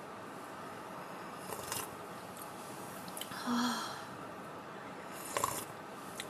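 Soft sips and slurps of hot ramen broth drunk from a stainless steel bowl: three short sips, the longest about midway.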